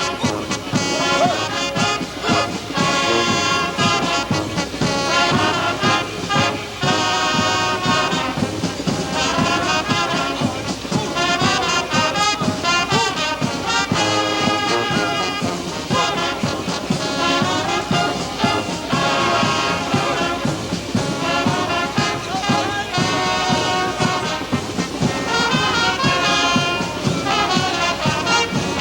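Brass band music, trumpets and trombones playing a melody in sustained chords.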